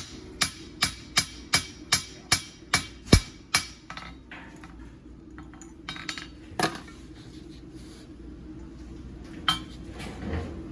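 Hand hammer striking a thin, hot steel clavo on the anvil at a steady rhythm, about two and a half ringing blows a second, working a texture into it; the hammering stops about three and a half seconds in. After that come a couple of single metal clinks over a steady low hum.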